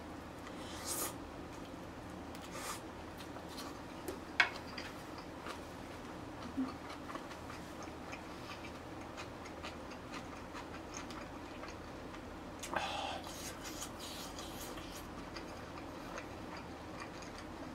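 Someone quietly eating spicy braised beef ribs: soft handling sounds with scattered sharp clicks of utensils, the loudest about four seconds in and a short run of them near the end.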